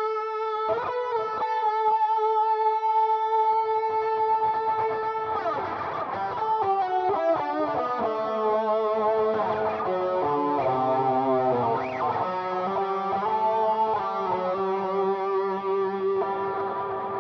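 Electric guitar played through a NUX MG-300 modelling processor on an overdriven amp preset with delay and reverb, playing a dangdut-style lead. A long note with wavering vibrato comes first, then a quicker run of notes about five seconds in, ending on sustained notes that ring out.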